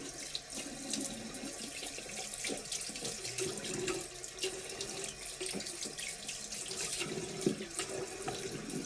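A tap running into a bathroom sink, the water splashing unevenly as the mouth is rinsed after brushing teeth.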